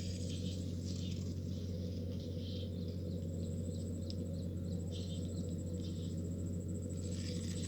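Outdoor nature sounds: an insect trilling in a fast pulsing high note, with scattered small bird chirps, over a steady low hum.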